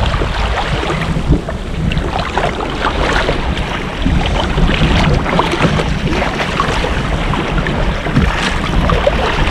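Wind buffeting the microphone, with the sea lapping and slapping against a sea kayak's hull and a few small scattered ticks.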